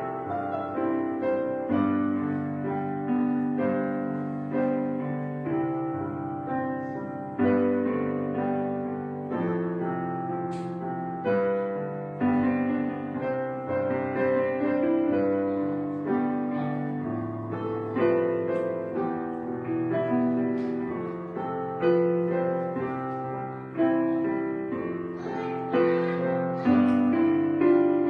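Background piano music: a slow, gentle piece of chords and melody notes played steadily.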